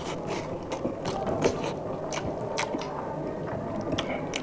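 Close-miked eating sounds of people chewing rice and fish curry eaten by hand: irregular wet mouth clicks and smacks, about a dozen over a few seconds, with soft squishing of fingers mixing rice on the plates.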